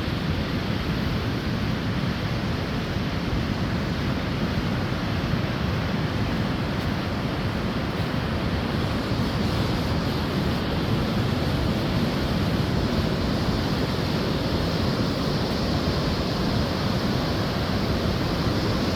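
Steady rushing of ocean surf mixed with wind on the microphone, an even noise with a strong low rumble and no breaks.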